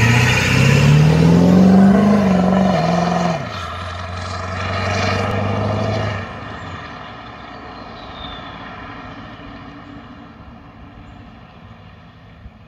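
A Ford 7.3 Powerstroke V8 turbodiesel with a 66 mm Garrett Powermax turbo, accelerating hard away. The engine note climbs, drops sharply about three and a half seconds in as it shifts, and pulls on until the throttle lifts about six seconds in. It then fades steadily into the distance.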